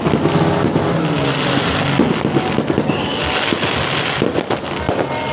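Fireworks and firecrackers going off, a dense, continuous run of cracks and bangs with hissing crackle.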